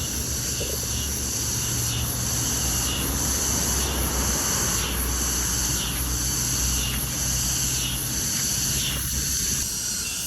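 Insects chirping in a steady pulsing rhythm, about three pulses every two seconds, with a high continuous note that drops out near the end. A low rumble sits underneath.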